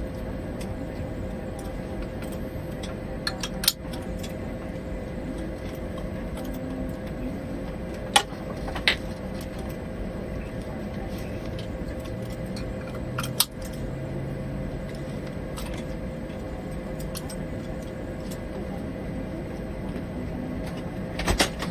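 Steady hum of an Airbus A220 flight deck on the ground, with a held mid tone, while an engine start is under way. A few sharp clicks stand out, about four, eight, nine, thirteen and twenty-one seconds in.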